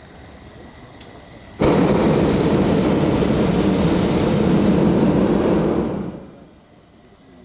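Hot air balloon's propane burner firing: a loud, even roar that starts suddenly about a second and a half in, runs for about four seconds and dies away.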